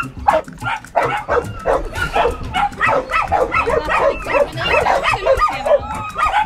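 Many dogs barking at once, a dense run of short, high barks and yips overlapping one another without a break.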